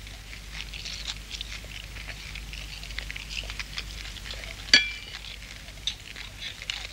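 Cutlery clinking against dishes at a meal: scattered light clinks, with one louder clink that rings briefly about five seconds in.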